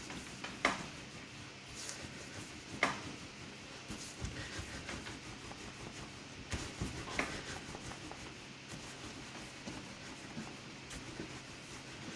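A 90 cm wooden rolling pin (mattarello) rolling a sheet of pasta dough over a wooden pasta board, hands gliding outward along the pin: soft rubbing and sliding with a few light clicks.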